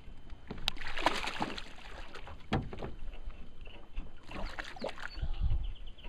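Water splashing in two bursts, about a second in and again around four to five seconds in, as a hooked largemouth bass of about five pounds thrashes at the surface, with a few sharp knocks.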